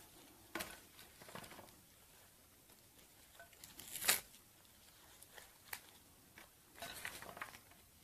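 Fresh lettuce leaves torn into short pieces by hand: soft, crisp tearing and crinkling with scattered light snaps. The loudest snap comes about four seconds in, and a short run of crackles follows near seven seconds.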